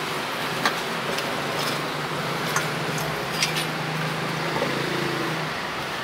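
Steady street traffic noise, with a low engine hum for a few seconds in the middle. Over it come a few scattered light knocks and clicks from a cleaver and chopped roast pork being handled on a wooden chopping board.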